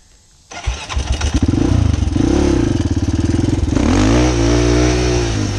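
Honda TRX400EX quad's single-cylinder four-stroke engine, quiet for the first half second, then suddenly loud and revving, its pitch rising and falling as the quad accelerates away.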